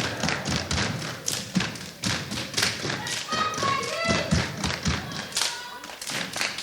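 Step team stepping: fast, rhythmic foot stomps and hand claps and slaps. A brief pitched call cuts in about halfway through.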